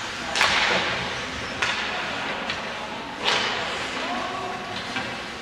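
Ice hockey play: several sharp knocks and cracks of puck, sticks and boards, the loudest about half a second and three seconds in, each echoing in the arena.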